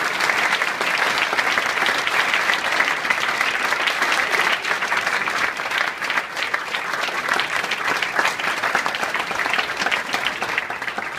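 Audience applauding: a dense, steady clapping that starts to thin out near the end.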